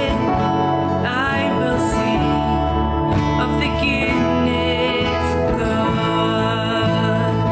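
Slow worship song: a woman singing over strummed acoustic guitar and keyboard.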